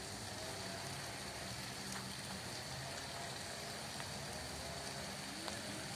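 Steady low hiss of outdoor ambience with nothing standing out.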